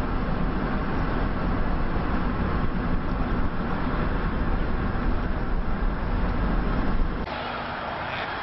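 Road noise of a car in motion: a steady low rumble with tyre hiss. About seven seconds in it drops to a quieter, thinner hiss.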